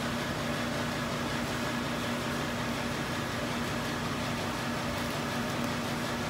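Steady mechanical room hum with a constant low tone, like a ventilation or air-handling fan running, unchanging throughout.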